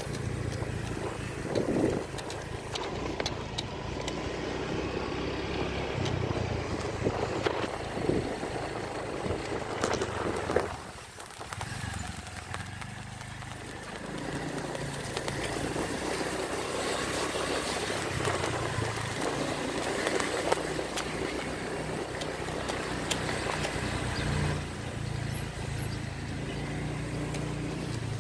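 Small motorcycle's engine running as it is ridden over a rough dirt track, with scattered knocks and rattles from the bumps. The sound dips briefly about eleven seconds in.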